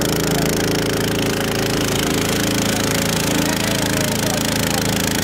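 Sonali 170F long-tail boat engine, a 208 cc single-cylinder four-stroke petrol engine rated at 7.5 hp, running steadily under load as it drives the boat through the water.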